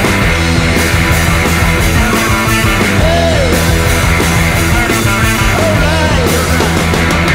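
Loud, heavy stoner rock played by a full band with distorted electric guitar, bass and drums, including a bent lead note about three seconds in and another near six seconds.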